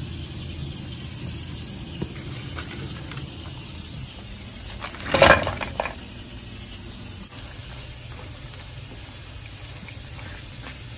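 Frozen broccoli florets tipped off a paper plate into a hot nonstick skillet about five seconds in: a brief, loud clatter and hiss as they hit the oil, followed by a few small knocks. A steady low cooking noise runs underneath.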